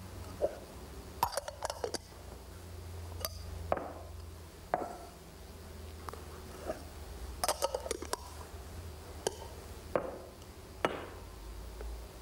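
Metal magician's cups clinking and knocking as they are lifted, stacked and set down in a cups-and-balls routine: a dozen or so sharp clicks, some in quick flurries about a second in and again midway.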